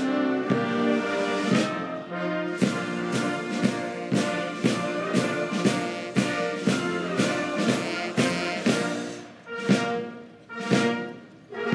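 Military brass band playing a march, with bass drum strokes about twice a second under brass chords. Near the end the drumbeat drops out to softer held chords, then picks up again.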